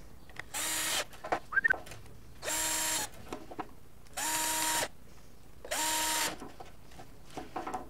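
Cordless drill driving screws into a plastic torch handle in four short runs of about half a second each. Each time the motor whines up to speed and winds down, with small handling clicks between the runs.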